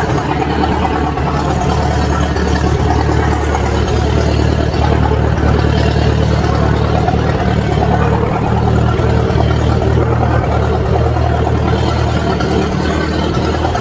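Engine of an old Massey Ferguson backhoe running steadily at an even, unchanging speed.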